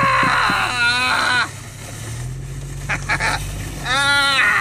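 People whooping and hollering in high, sliding yells, twice: in the first second or so and again about four seconds in. A towing vehicle's engine hums low and steady underneath.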